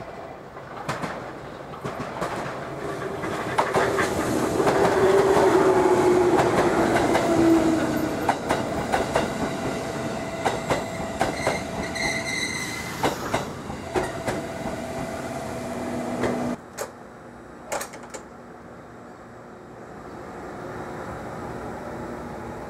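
JR Kyushu 787 series electric limited express passing at close range, wheels clattering over rail joints under a whine that falls in pitch, loudest about 4 to 8 seconds in. The sound cuts off suddenly about 16 seconds in, leaving a quieter background with a few sharp clicks.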